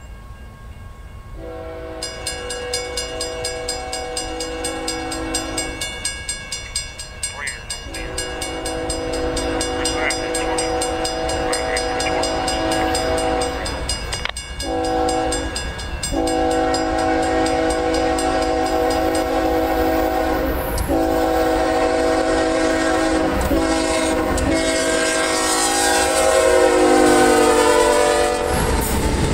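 Diesel freight locomotive (CSX ES44AH) sounding its multi-chime horn for a grade crossing: two long blasts, a short one, then a long blast held as the locomotive passes, its pitch dropping as it goes by. Near the end come the rumble and clatter of the freight cars rolling past.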